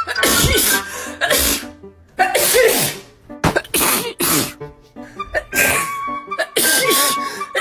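A run of human sneezes, several short sharp ones in quick succession spread through the whole stretch, over background music.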